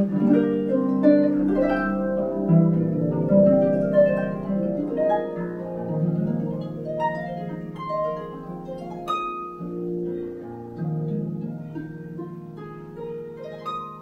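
Solo concert harp: plucked notes ringing over one another in a flowing classical passage, growing gradually softer toward the end.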